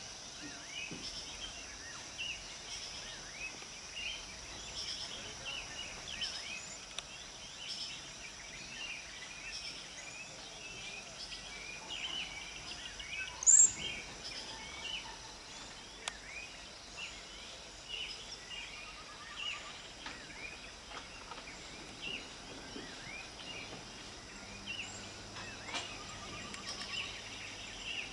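Outdoor ambience of many small birds chirping over a steady high insect drone, with one sharp, loud high chirp about halfway through. No rumble of the rockfall is heard.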